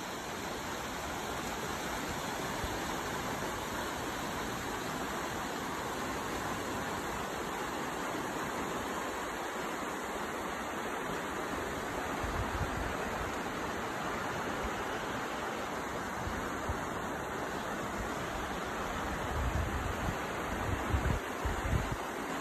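Steady rush of Spearfish Creek's flowing water. Low buffeting on the microphone shows up briefly past the middle and again near the end.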